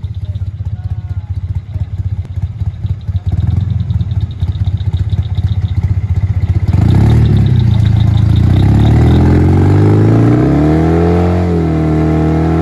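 Side-by-side UTV engine labouring at low revs, then, about halfway through, revving up hard under load as it climbs a rocky ledge. Its pitch dips, then climbs and holds high near the end.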